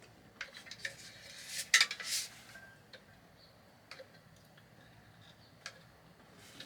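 Scattered light clicks, taps and short scrapes from handling tools and a silicone caulk tube while filling screw holes in wood wall panels: a cluster in the first two seconds, then single sharp ticks every second or two.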